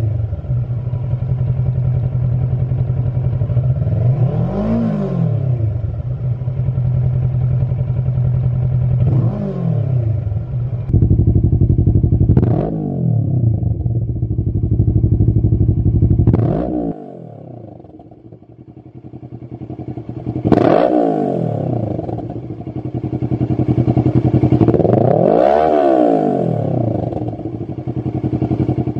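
Kawasaki Versys 650 parallel-twin engine idling and being blipped, revving up and dropping back, first through its stock exhaust with two blips. From about eleven seconds in it plays through a Lextek SP1 aftermarket silencer with four more blips, the last one held longer, and the idle goes much quieter for a few seconds after the second of these.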